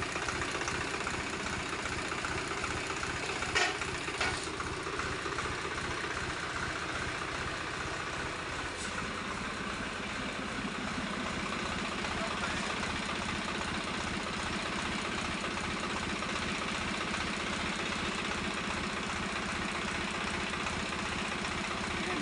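Swaraj 735 FE tractor's three-cylinder diesel engine idling steadily, with two short clicks a few seconds in and a slight change in its note about nine seconds in.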